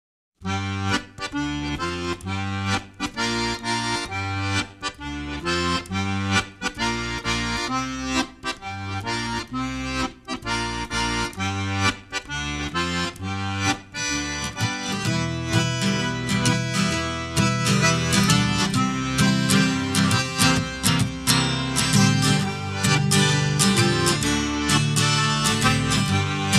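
Instrumental intro of an alt-folk song: accordion chords over plucked guitar, the band coming in fuller about halfway through.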